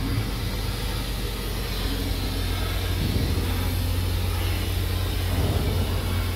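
TIG welding a carbon steel pipe joint: a steady low electrical hum with a faint hiss while the arc burns, without a break.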